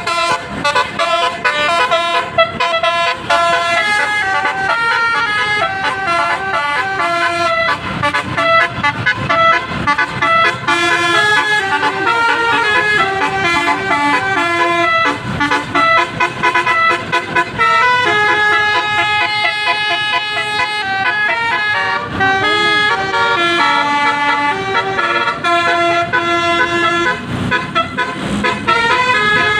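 Basuri telolet bus horn, a multi-tone horn, playing a tune of held notes that step from pitch to pitch without a break.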